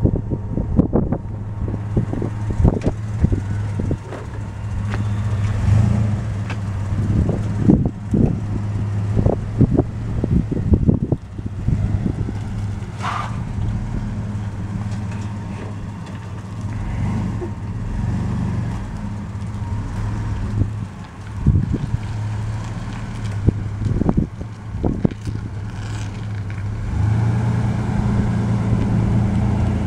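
A 2001 Dodge Ram 1500 pickup's 3.9-litre V6 gas engine running steadily as the truck drives around, with many short thumps of wind on the microphone. The hum grows louder near the end as the truck comes closer.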